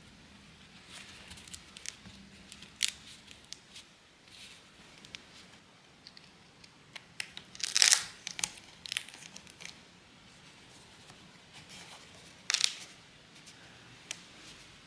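Upholstery fabric rustling and scraping as a sofa's skirt is tucked and pressed over its wooden frame, in short irregular bursts; the loudest come about halfway through and again a few seconds later.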